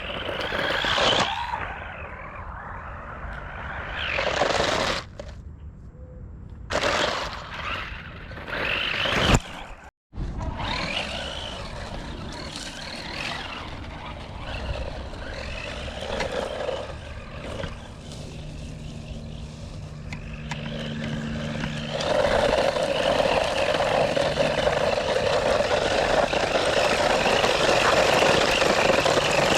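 DEERC 9000E 1:14-scale electric RC monster truck being driven, its motor and tyres surging in several short bursts of speed, then running steadily and louder for the last several seconds.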